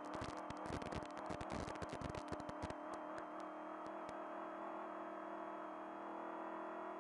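Trophy truck engine running steadily at high revs, heard from inside the cab while the truck accelerates. For about the first three seconds there is a dense clatter of sharp knocks and rattles, which thins to a few ticks and then stops, leaving only the engine drone.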